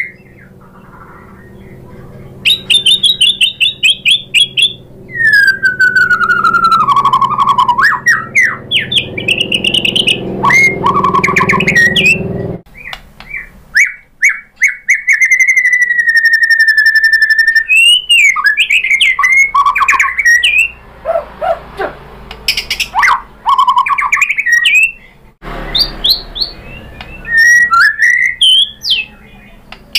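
White-rumped shama (murai batu) in full song: loud, clear whistled phrases with falling and rising glides, rapid repeated notes and trills, and one long steady whistle about halfway through.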